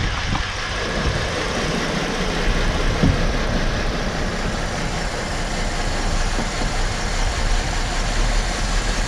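Engine idling steadily under the bonnet while misfiring on cylinder 2, whose fuel injector is not firing because the engine computer's driver cannot ground its circuit.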